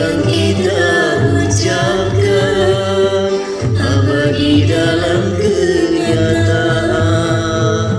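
Dangdut karaoke song playing: a steady drum-and-bass beat with a sung melody over it.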